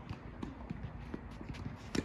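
Tennis players' quick footsteps and shuffles on the court, with one sharp tennis-ball impact just before the end.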